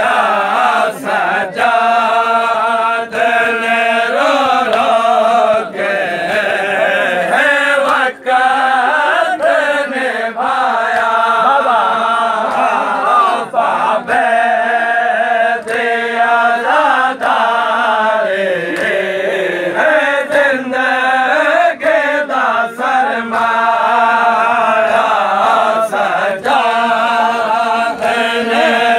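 A group of men chanting a noha, a Shia mourning lament, with sharp slaps of hands on chests (matam) striking in time about once a second.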